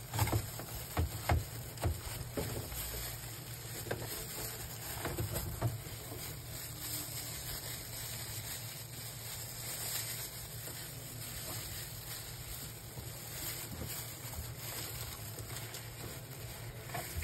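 Steady low hum and hiss of background noise, with a few light clicks and knocks in the first few seconds from gloved hands handling parts inside an inkjet printer.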